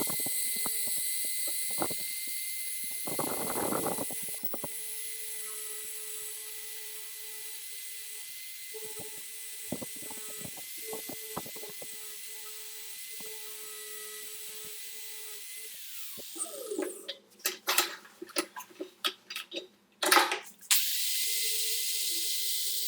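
Electric power tool running at steady speed with a high whine and a hiss, which winds down about two-thirds of the way through. A few seconds of clicks and knocks follow, then the tool starts up and runs again near the end.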